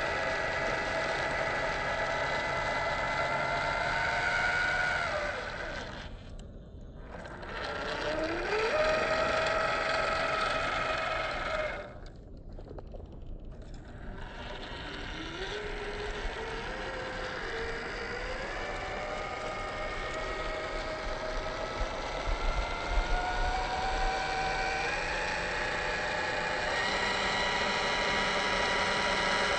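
Electric motor and gear whine of a 1/10-scale Boom Racing BRX02 Land Rover Series 3 RC crawler, rising and falling in pitch with the throttle. It drops away twice, about six and twelve seconds in, then climbs slowly in pitch.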